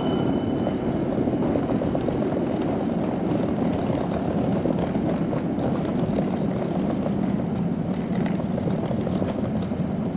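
Rolling suitcase wheels rattling over cobblestone and brick paving, a steady dense rattle.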